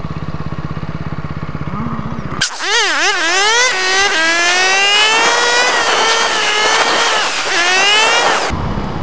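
Motorcycle engine idling with a steady low pulse. About two and a half seconds in it is replaced by a loud pitched sound that wobbles quickly up and down, then holds and slowly rises for about six seconds before cutting off suddenly, and the idle comes back.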